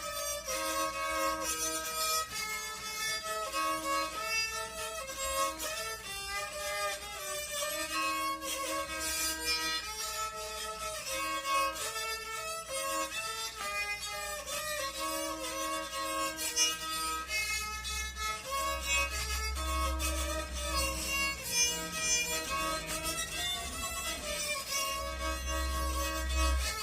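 Rabeca, the Brazilian folk fiddle, bowed in a continuous melody of held and repeated notes. A low rumble sits under the playing twice, from about two-thirds of the way in and again near the end.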